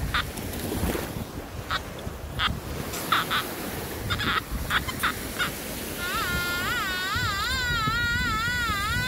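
Nokta Makro Anfibio metal detector signalling a target: a run of short beeps as the coil is swept over the spot, then about six seconds in a continuous tone that warbles up and down in pitch.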